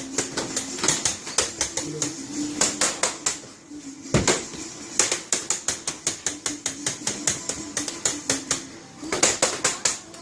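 Rapid runs of sharp knocks on a hard surface, several a second, with a brief lull and one heavier thump about four seconds in.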